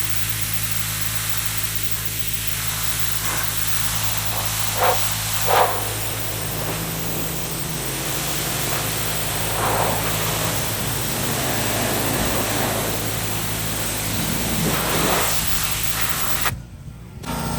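Pressure washer spraying water steadily, with a constant hum underneath and a few brief louder swells of spray. The sound drops out suddenly for a moment near the end.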